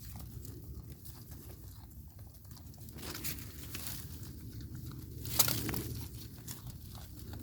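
Baby goat eating bean plants: tearing off leaves and pods and crunching them, with many small crackles and one sharp snap about five and a half seconds in.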